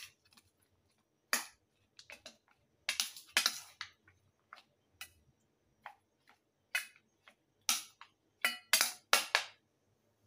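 Metal spoon clicking and clinking against a stainless steel bowl while pork ribs are spooned into place, about a dozen short, sharp taps at uneven intervals, a few of them longer scrapes.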